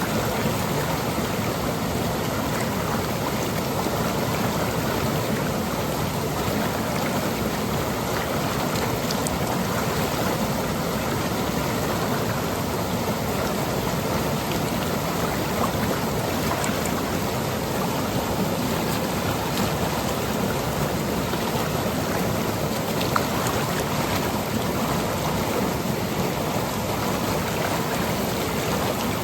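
Seasonal monsoon stream running over rocks and pebbles: a steady, even rush and splash of flowing water.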